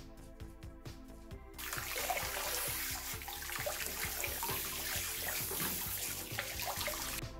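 Water from a hand-held spray nozzle rinsing a nakiri knife blade and splashing into a tub of water, starting about one and a half seconds in and cutting off just before the end. Background music with a steady beat plays throughout.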